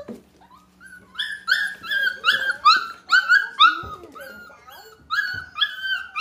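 Young puppies, four and a half weeks old, giving a rapid run of short, high yips and whines, about three or four a second, each dipping slightly in pitch, with a few soft knocks among them.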